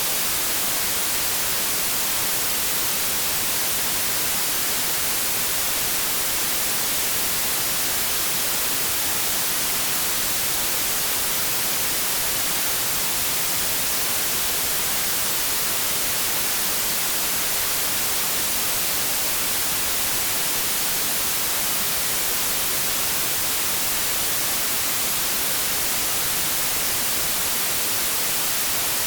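Steady white noise static: an even, unchanging hiss, strongest at the high end, with no breaks or events.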